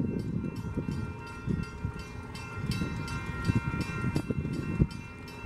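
Low rumble of a distant approaching freight train, with a steady, rapid bell-like ringing of repeated strikes over it.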